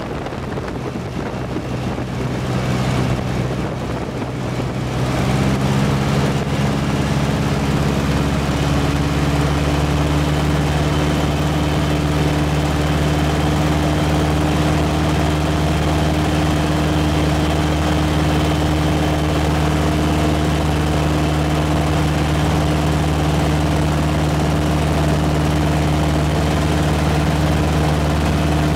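Steady drone of a piston aircraft engine and propeller in flight, heard from inside the filming aircraft's cabin along with wind noise. About five seconds in, the wind hiss drops back and the engine drone becomes louder and steadier.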